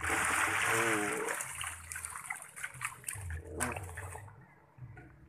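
Caged snubnose pompano (bawal bintang) thrashing and splashing at the surface as they snatch feed: a loud burst of splashing that thins out and fades over about four seconds.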